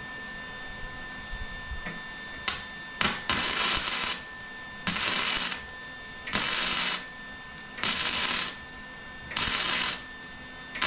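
Wire-feed welder laying a string of short welds on a steel square-tube frame: about six sizzling bursts of the arc, each under a second long and coming roughly every second and a half, after a couple of brief sputters.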